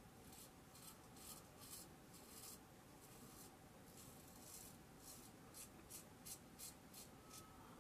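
Ming Shi 2000S adjustable double-edge safety razor scraping through lathered stubble around the upper lip and chin: a faint run of short, quick scratchy strokes.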